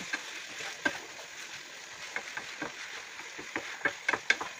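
Chicken pieces and sliced red onion sizzling in a frying pan, with a wooden spatula scraping and tapping the pan as they are stirred; the scrapes come more often near the end.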